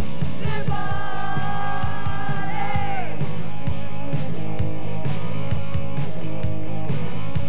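Rock song with a steady drum beat and singing, with a long held note through the first few seconds.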